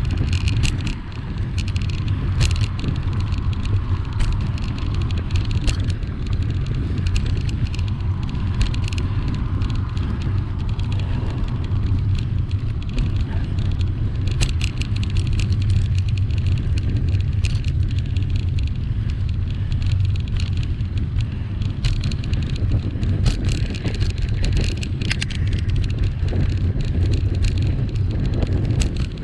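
Riding a bicycle on a tarmac road: a steady low rumble of wind on the microphone and tyres on the road surface, with scattered small clicks and rattles.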